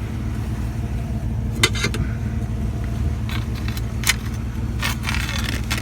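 A vehicle engine idling steadily, with sharp metallic clinks and rattles scattered through, a short cluster of them near the end.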